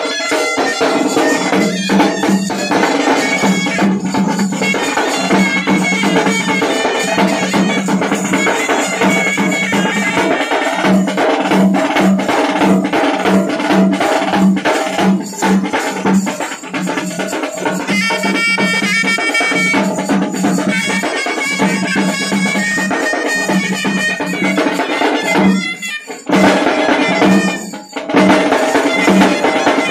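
Street band playing: a large bass drum and strapped side drums beaten with sticks keep a fast, steady beat under a trumpet melody. The music drops out for a moment twice near the end.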